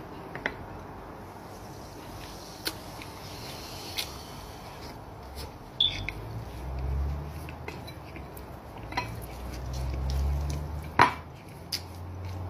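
A man chewing and eating bread, with scattered mouth clicks and small taps and a sharp click near the end.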